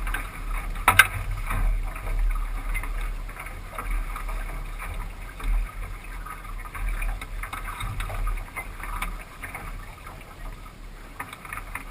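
Water splashing and lapping, with wind buffeting the microphone in an uneven low rumble and a single sharp knock about a second in.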